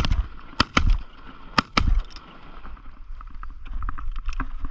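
Shotgun shots fired at Canada geese: about four sharp blasts in quick succession within the first two seconds, then quieter.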